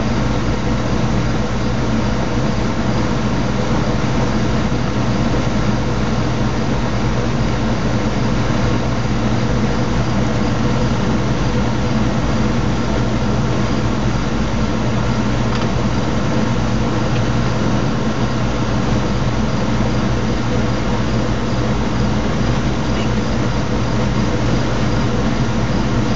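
Steady mechanical drone with a constant hum and no breaks or changes.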